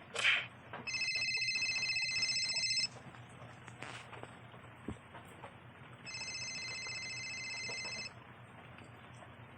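A telephone ringing twice, each ring a trilled tone lasting about two seconds, with a pause of about three seconds between the rings. A short, loud burst of sound comes just before the first ring.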